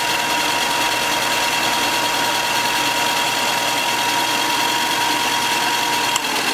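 Bauer 4" x 36" belt and 6" disc bench sander running unloaded on its first start-up: a steady electric motor hum with a thin whine over the rush of the spinning belt and disc. It is switched off with a click near the end. The owner thinks the 4-inch belt is slightly out of alignment and flopping, and may need tensioning.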